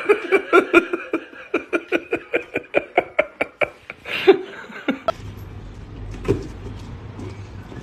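A person laughing in a quick run of short bursts that thin out and stop after about four seconds. A steady low hum follows, with a single thump.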